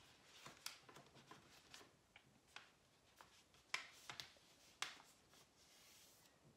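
Faint rustling and crackling of a sheet of paper being folded and creased flat by hand, a few sharp crinkles scattered through, with a soft swish near the end.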